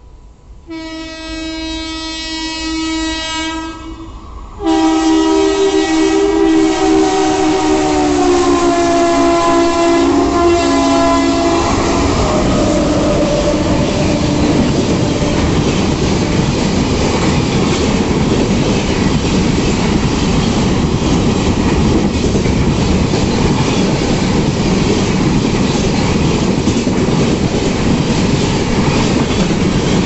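Electric locomotive horns: a fainter multi-tone horn blast about a second in, then a much louder horn at about four and a half seconds whose pitch falls as the WAP-7 locomotive passes. The horn is followed by the Wainganga Express's coaches rushing past with loud, steady wheel clatter.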